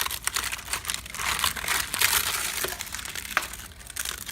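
Termites at work inside infested wood: a dense, continuous crackling and rustling of many tiny clicks, the sign of an active termite infestation.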